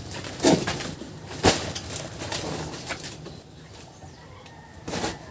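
A bird's call with a falling note about half a second in, a sharp knock about a second and a half in, and a short rustling burst near the end.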